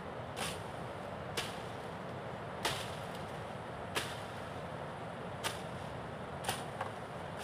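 Machete chopping through brush and plant stems: seven sharp strokes at roughly one-second intervals, two of them close together near the end.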